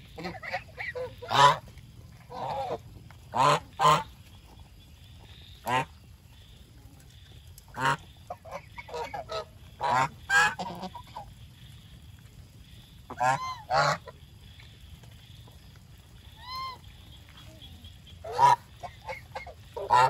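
Domestic geese honking, loud single honks every second or two with softer calls in between.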